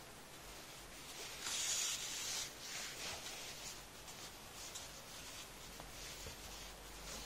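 Yarn being pulled through crocheted fabric as two crocheted pieces are sewn together with a yarn needle: a soft rustling rub, loudest about one and a half to two and a half seconds in, followed by several shorter, fainter strokes.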